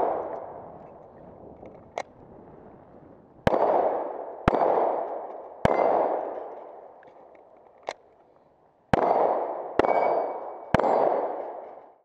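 Handgun shots fired one at a time at an uneven pace, six loud reports, each followed by a long echo that rolls away across the range. Two fainter cracks come in between. A faint metallic ring from struck steel targets follows some of the shots.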